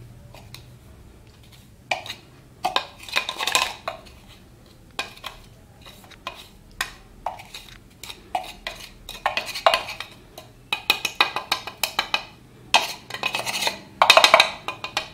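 Metal spoon scraping and clinking against a chopper jar as ground spice mix is scraped out onto a plate, in irregular bursts of scrapes and taps that come thicker toward the end.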